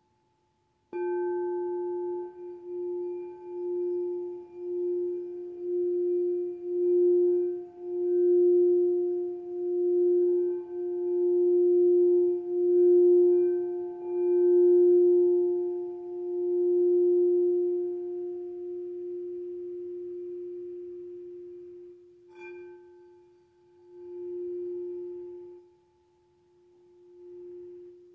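A white crystal singing bowl, struck with a wooden mallet and then rung around its rim, giving one steady ringing tone that swells and ebbs about once a second and builds louder before slowly fading. It is struck again a little after 22 seconds and swells twice more near the end.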